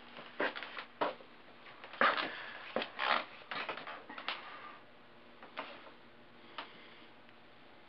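Irregular clicking and clattering, like a typewriter, in uneven clusters. It is loudest about two to three seconds in and thins out to a few single clicks in the second half.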